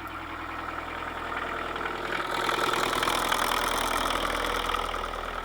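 Kubota KH-90 mini excavator's diesel engine idling, then picking up and running louder from about two seconds in before easing back near the end.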